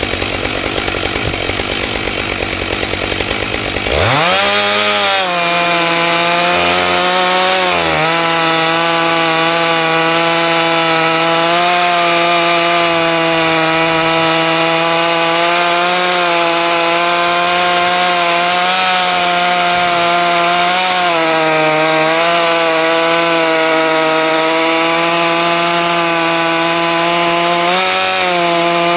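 Stihl MS661 chainsaw on a chainsaw mill, running slowly, then opened up to full throttle about four seconds in and held at a steady high pitch. It is ripping along a pine log with a ripping chain, and its pitch sags briefly a few times as the cut loads it.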